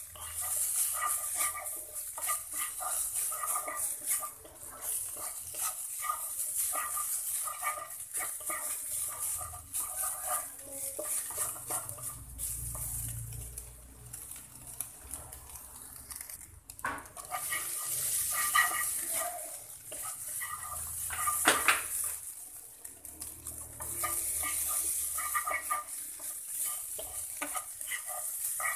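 Minced chicken breast sizzling in a nonstick wok while a wooden spatula stirs and scrapes it around the pan, the meat being fried dry for a noodle topping.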